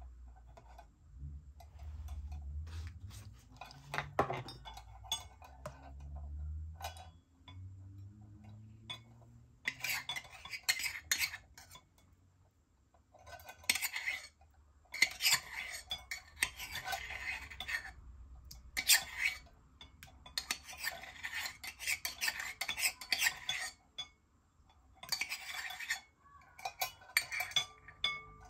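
A utensil stirring and scraping in a mixing bowl: bouts of quick clinking and scraping a few seconds long, with short pauses between.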